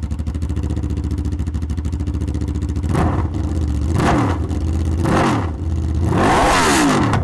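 Aprilia RSV4 1100's V4 engine through an SC-Project GP-22 titanium exhaust, idling steadily and then blipped four times from about three seconds in. Each rev rises and falls, the last one higher and longer.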